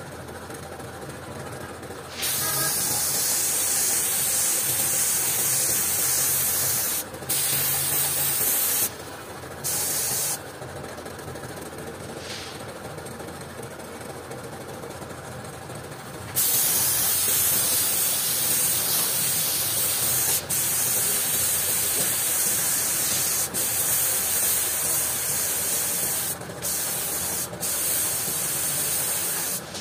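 Compressed-air paint spray gun hissing in long bursts as red paint is sprayed on: one burst starts about two seconds in, a short one follows, then a pause, then a long spell of spraying from about halfway to near the end, broken by a few brief stops. A steady mechanical hum runs underneath.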